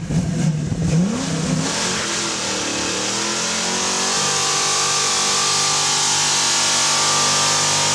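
Car engine revving and then held at high revs for a burnout, with a steady hiss rising in from about two seconds in.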